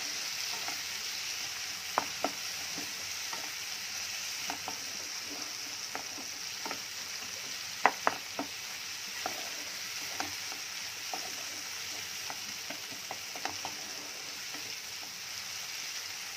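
Onions, tomatoes and garlic sizzling steadily in oil in a non-stick frying pan while a spatula stirs them, with scattered taps and scrapes of the spatula on the pan; two sharper knocks come about eight seconds in.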